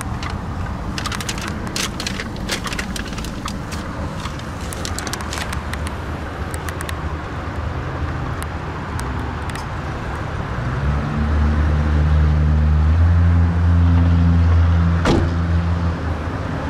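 Plastic clicks and rattles of a hood release lever being worked under the dashboard, over the steady low hum of a 2014 Haima M3's engine idling. About eleven seconds in, a deeper low hum grows louder for about four seconds and ends with a sharp knock.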